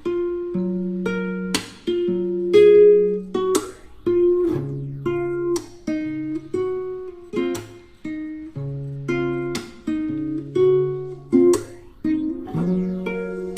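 Background music: gently plucked and strummed acoustic guitar playing a slow chord progression.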